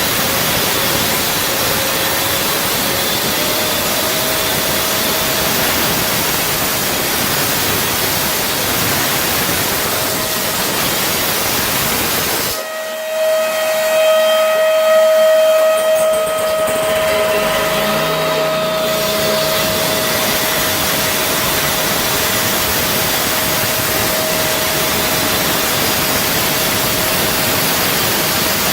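Electric cutting tool running steadily: a loud hiss with a motor whine that rises slightly about three seconds in. Around the middle the deep part of the noise briefly drops away, leaving the whine and its higher overtones.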